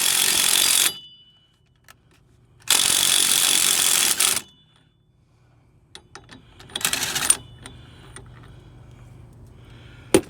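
Old Ryobi impact driver hammering on a seized bolt in three bursts: one that stops about a second in, a longer one around three to four seconds, and a short one near seven seconds, with a few light clicks between.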